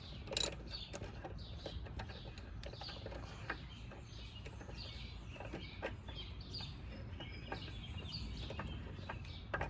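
Scattered light metallic clicks and knocks of lug nuts being threaded onto a wheel by hand, with faint bird chirps in the background.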